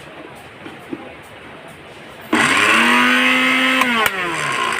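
Kenwood KW-881 blender's motor switched on about two seconds in: it whines up to speed in a quick rise, runs steadily for about a second and a half, then cuts off with a couple of clicks and winds down in falling pitch.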